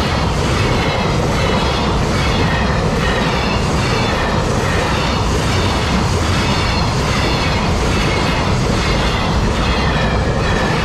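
A freight train rolling steadily past at a level crossing, with loud continuous wheel-on-rail noise and some clatter from the wagons. A level-crossing bell rings about twice a second over it.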